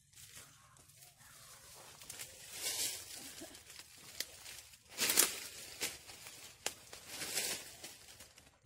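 Rustling and crackling noises that swell louder three times, with a few sharp clicks in between.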